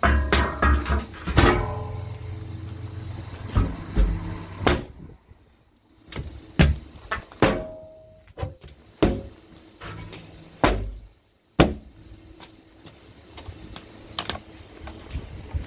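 Steel chequer-plate drain cover clanking and ringing as it is lowered into its frame over the inspection chamber, followed by a string of separate thuds and metallic clanks as it is stood on and settled in place.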